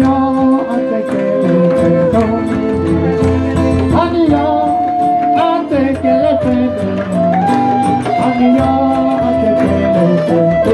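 Live folk ensemble playing: a man's singing over strummed acoustic guitar, a diatonic button accordion and hand-played djembe drums.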